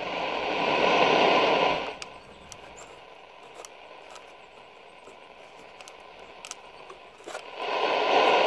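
Shortwave static from a 1962 Zenith Trans-Oceanic 3000-1 radio's speaker, turned up loud while the tuning knob is turned, with no station coming in. The hiss swells loud for the first two seconds and again near the end, with quieter hiss and scattered crackles between.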